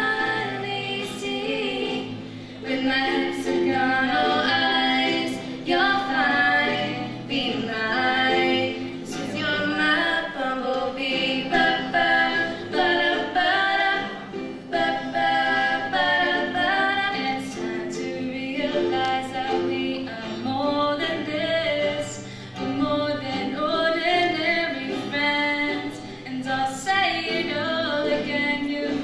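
Two female voices singing a song together, accompanied by a strummed acoustic guitar and a ukulele.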